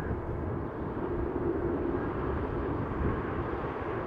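Airbus A380-841's four Rolls-Royce Trent 970 turbofans running as the airliner rolls slowly along the ground: a steady, low jet-engine rumble with a faint hum.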